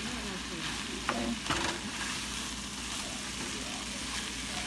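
Rice, onions and hearts of palm frying in butter in a skillet, sizzling steadily while a spatula stirs them, with a few short scrapes and knocks of the spatula against the pan around a second and a half in.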